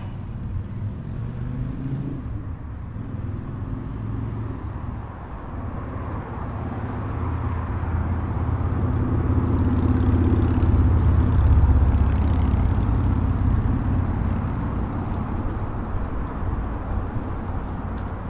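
A motor vehicle passing by: a low engine rumble that grows louder, peaks about ten to twelve seconds in, then fades away.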